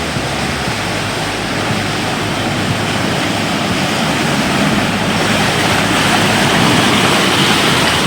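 Loud, steady rushing noise of a passenger boat under way: engine and water spray mixed together, growing gradually louder.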